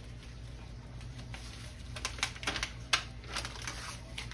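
Light, irregular taps and clicks of empanada dough rounds being handled and set out on a wooden countertop, the sharpest click a little before three seconds in, over a steady low hum.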